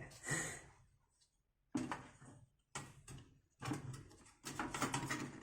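Handling noises from the Amiga 500's metal shield and plastic case parts being moved. There are sudden knocks about two and three seconds in, and scraping and rustling near the end.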